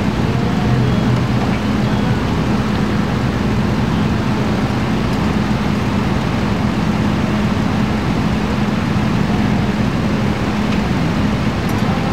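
Steady low drone of an idling fire engine, an even engine hum that does not change.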